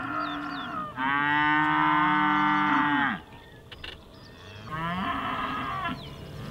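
Cattle mooing: a long, loud moo lasting about two seconds starts a second in, then a shorter, fainter moo comes near the end.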